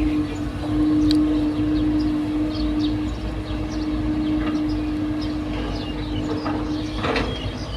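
Steady machine hum with one held tone over a low rumble. Short high chirps are scattered through it, and a brief rush of noise comes about seven seconds in.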